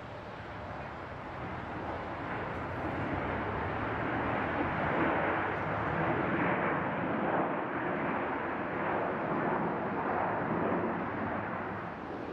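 Jet engines of a Boeing 737 airliner rolling along the runway: a broad rushing noise that swells over the first few seconds, holds, and eases off near the end.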